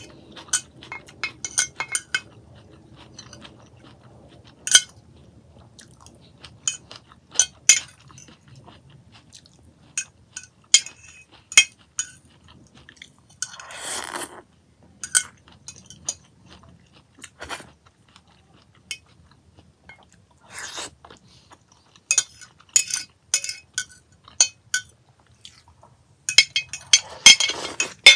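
Metal fork clinking and scraping against a glass dish, with chewing of a sweetcorn and tomato salad between the clinks. Near the end comes a quick flurry of scrapes as the last kernels are gathered from the nearly empty dish.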